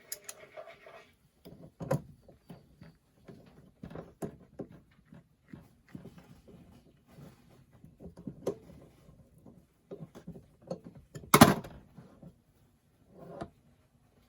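Small scattered clicks and knocks of hand tools and metal faucet parts being handled during a faucet repair, with one sharp loud knock about eleven seconds in.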